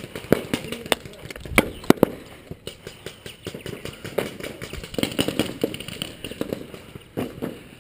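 Paintball markers firing: irregular sharp pops, a few loud close shots in the first two seconds, then scattered quicker clusters of pops.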